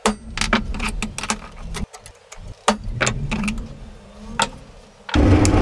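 Metal tools and steel parts clinking and knocking as they are picked up and set down on a wooden workbench, a string of sharp irregular clicks over handling rumble. Near the end a loud steady noise starts abruptly.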